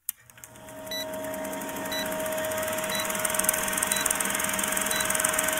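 Old film projector countdown effect: a projector running with a fast, steady clatter and a constant hum, and a short high beep about once a second as the leader counts down.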